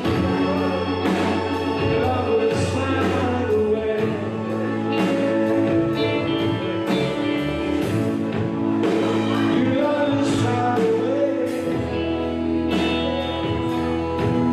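A gospel song: singing over a band, with held instrument chords and a steady drum beat.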